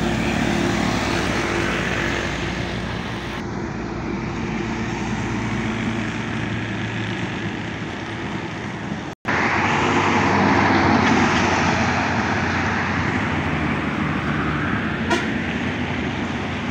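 Road traffic noise from heavy trucks: a steady engine drone under tyre and road noise. The sound cuts out for a split second about nine seconds in and resumes, and there is a single short click near the end.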